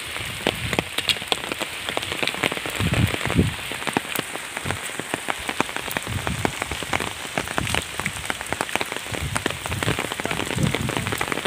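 Rain falling steadily, heard as a constant hiss full of dense, irregular sharp drop clicks.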